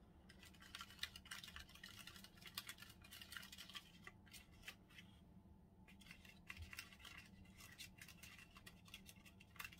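Small plastic spoon scraping and clicking against the wells of a plastic candy-kit tray while stirring the candy mix: faint, rapid scratching, with a short pause partway through.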